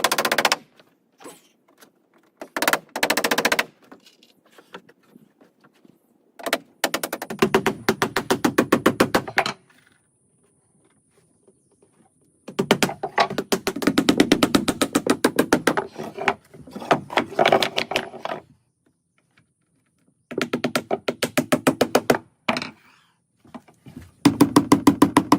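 Impact driver driving screws into wood framing, in repeated bursts of a few seconds, each a fast, even rattle of hammering impacts.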